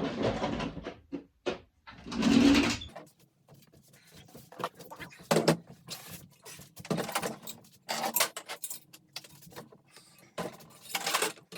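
Irregular knocks, clicks and scrapes of pocket-bike parts and hand tools being handled, with two longer, louder noisy bursts in the first three seconds.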